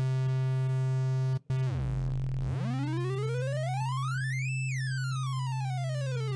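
Arturia Pigments software synthesizer holding a steady low note while a second oscillator, its coarse tuning quantized to C major notes, is swept down very low, then up to a high pitch and back down. The sound drops out briefly about a second and a half in.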